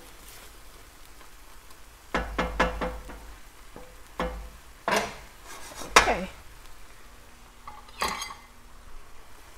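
Wooden spatula stirring a thick vegetable stew in an enamelled braiser, knocking against the pan. There is a quick run of taps about two seconds in, then single knocks, the loudest about six seconds in.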